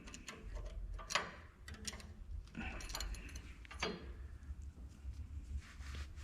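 A few light metallic clinks and knocks as metal parts are handled and set in place, over a low steady hum.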